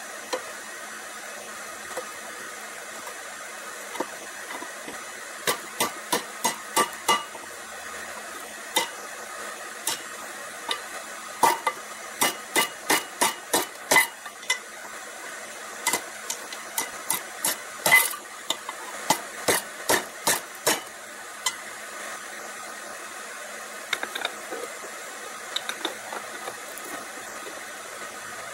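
Hand hammer striking a rebar hook laid on a section of railroad rail used as an anvil: groups of sharp, ringing metal blows, about two or three a second, with pauses between the groups. A steady hiss runs underneath.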